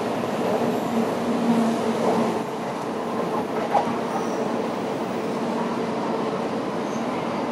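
Tokaido Shinkansen N700-series train pulling out and drawing away at low speed: a steady rumble of wheels on rail with a low motor hum that fades after a couple of seconds, and one sharp clack near four seconds in.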